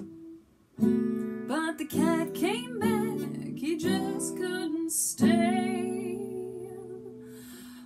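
Acoustic guitar strummed while a woman sings. A brief pause comes just after the start, and near the end a last strummed chord is left to ring.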